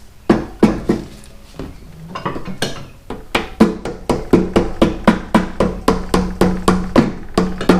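Hammer blows driving the front axle of a 2006 Harley-Davidson Ultra Classic through the wheel hub and fork. Two blows come early, then a pause, then steady taps about three a second, with a low ring under the later ones.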